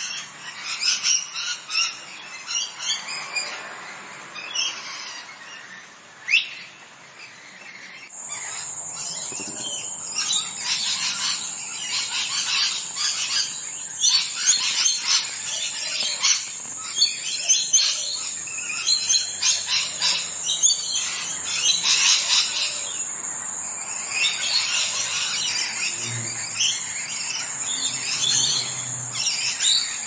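Parrots chirping and calling in quick, repeated short notes. The calls become louder and busier about eight seconds in, where a steady high-pitched tone joins them.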